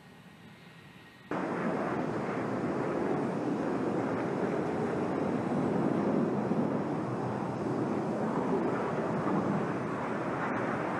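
F-22 Raptor's twin Pratt & Whitney F119 turbofans running on the ground: faint at first, then cutting in suddenly loud about a second in as a steady rushing jet noise.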